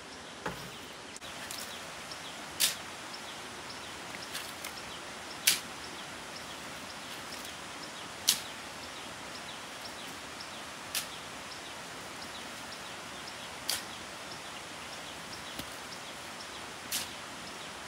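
Sharp, bright taps, about one every three seconds, over a steady outdoor hiss, with faint rapid high-pitched ticking behind them.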